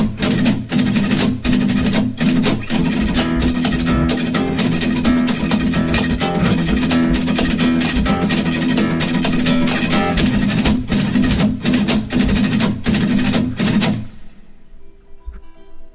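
Fast acoustic guitar music with a steady percussive beat. About fourteen seconds in it drops suddenly to a quiet passage of soft, sparse notes.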